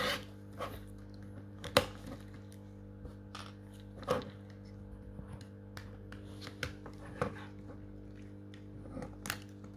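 Irregular sharp plastic clicks and knocks as the small plastic covers on an Anki Vector robot's head are prised and popped off by hand, with a steady low hum underneath.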